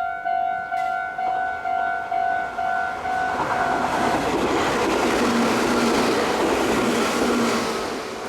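Japanese level-crossing warning bell ringing about twice a second. From about three seconds in, a Meitetsu train passes over the crossing, and its loud running noise drowns the bell for about five seconds before falling away near the end.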